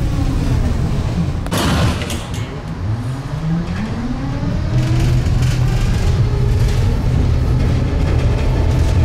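Electric tram running. Its motors whine and fall in pitch as it slows. After a short burst of noise about a second and a half in, the whine rises again as it pulls away, then settles into a steady low drone.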